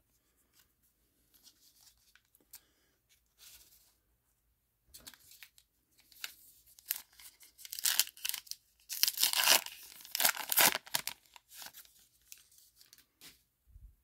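A trading-card pack's wrapper being torn open and crinkled by hand. Faint rustles come first; the tearing and crinkling get much louder about five seconds in and are loudest around nine to eleven seconds in.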